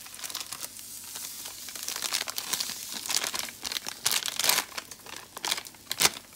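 Cook-up seasoning packet crinkling and rustling as the seasoning is shaken out over the rice, with a sharp click about six seconds in.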